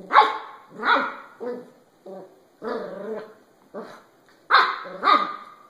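A young puppy barking in a string of short, high-pitched barks and yips, about eight of them at irregular intervals.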